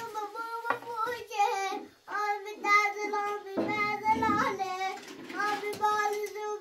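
A child singing in a high voice, holding long notes in phrases with short breaks between them.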